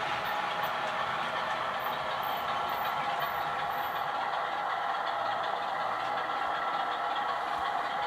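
OO gauge model of the Bulleid 1Co-Co1 diesel 10202 running with its Legomanbiffo sound decoder playing a steady diesel engine sound. The sound comes through the model's small on-board speaker, thin and without bass.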